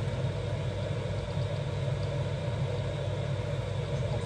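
A steady low mechanical hum with a faint even hiss above it.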